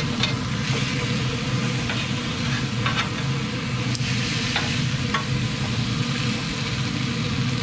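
Steaks and patties sizzling on the hot grate of a Pit Boss pellet grill, with a steady low hum underneath. Several light clicks of metal tongs against the food and grate are heard through the first five seconds or so.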